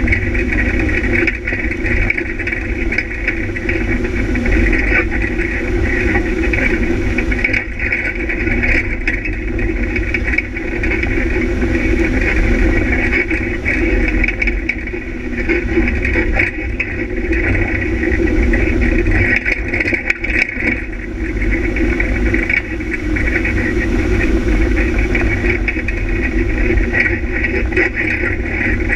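Off-road vehicle engine running steadily at speed along a bumpy dirt track, heard from a camera mounted on the vehicle, with a constant low rumble underneath.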